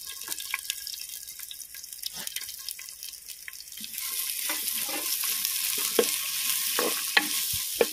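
Chopped onion frying in hot coconut oil with minced ginger and garlic, sizzling while a spatula scrapes and knocks against the pan as it is stirred. The sizzle grows louder about halfway through.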